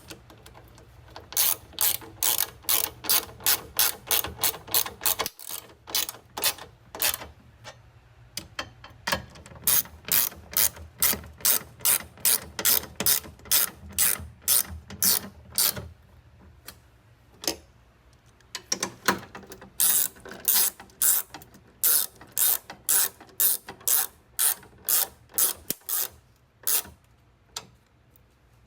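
Ratchet wrench clicking in runs of about three to four clicks a second as 5/16-inch bolts are snugged up, with short pauses between runs.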